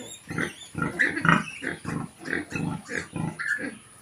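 Sow giving short, rhythmic nursing grunts, about three a second, while her newborn piglets suckle. The grunting is the sign of nursing and milk let-down.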